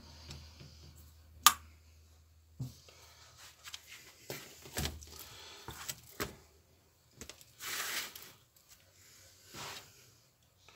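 Metal engine parts handled on a workbench: a valve dropped into a diesel walk-behind tractor's cylinder head gives a sharp metallic click about a second and a half in, then several knocks as the head is turned over. Near the end come two short bursts of crinkling plastic film under the head.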